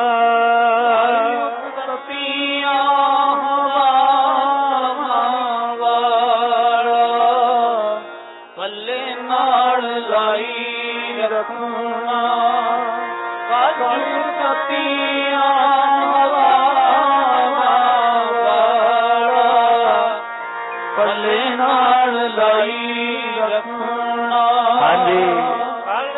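Punjabi devotional singing: a male voice drawing out long, wavering melodic phrases over steady held accompaniment tones. The phrases break off briefly about eight seconds in and again around twenty seconds in.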